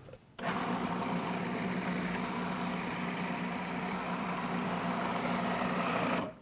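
Food processor motor running with a steady hum, its blade chopping fresh herbs and garlic. It starts about half a second in and cuts off suddenly just before the end.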